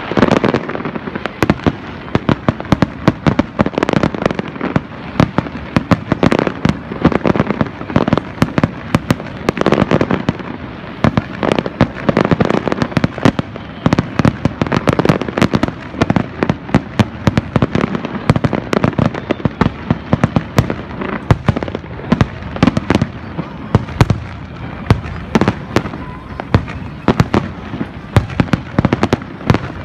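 Fireworks finale barrage: aerial shells bursting in quick succession, a dense run of sharp bangs several a second that goes on without a break.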